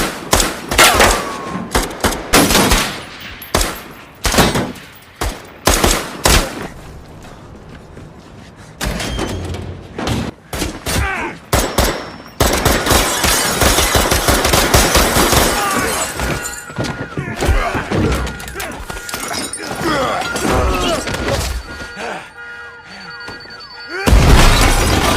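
Action-film battle sound: a run of gunshots in the first few seconds, then a long stretch of dense noise and a very loud low boom near the end.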